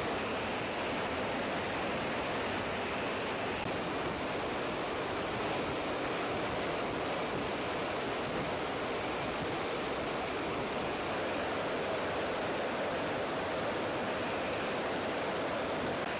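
Steady rushing noise of airflow and the KC-130J's turboprop engines, heard from inside the tanker's cargo hold with the rear ramp open.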